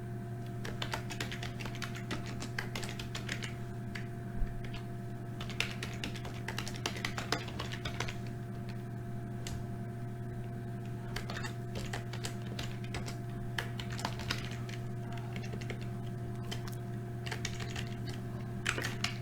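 Computer keyboard typing in bursts of quick keystrokes, with a few pauses, as names are entered into a list. A steady low electrical hum runs underneath.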